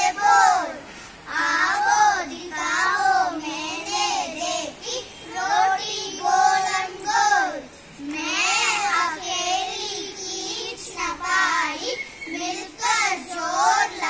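A small group of young children singing a song together in unison, in short phrases with brief breaths between them.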